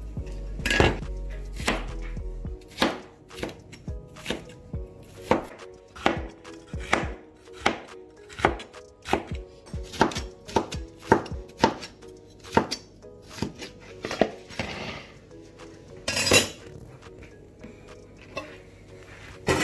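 Chef's knife slicing bell peppers on a plastic cutting board: a run of sharp knocks as the blade meets the board, about two a second, stopping a few seconds before the end.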